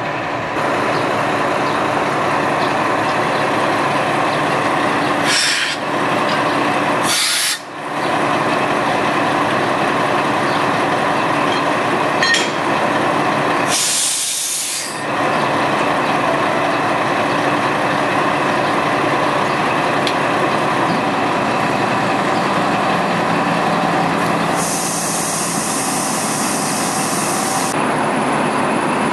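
Class 204 diesel-hydraulic shunting locomotive running steadily close by, with short hisses of compressed air from the air brakes about five, seven and fourteen seconds in, and a longer hiss near the end.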